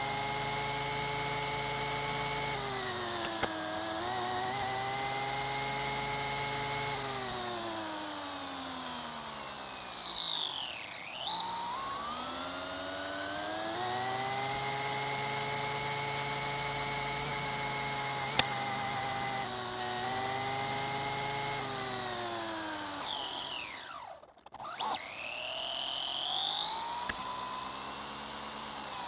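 Radio-controlled car's motor whining as the car drives, heard from its onboard camera. The pitch rises and falls with the throttle and sweeps low about eleven seconds in. It cuts out almost completely a little before the end, then whines back up.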